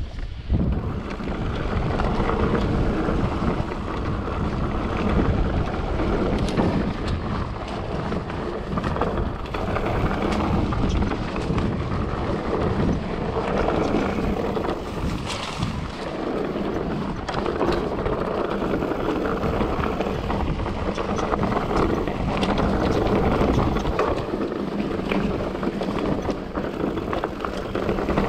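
Wind rushing over the microphone and mountain bike tyres rolling over a rough trail while riding: a steady noise with scattered knocks and rattles from the bike.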